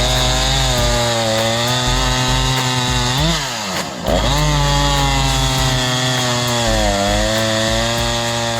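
Jonsered CS2255 two-stroke chainsaw running at high revs while cutting wood, its pitch sagging and recovering under load. About three seconds in, the pitch swings down and back up with a brief dip in level.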